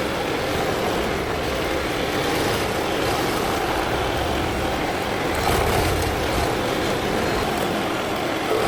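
Stump grinder running steadily, its cutting wheel grinding into a stump.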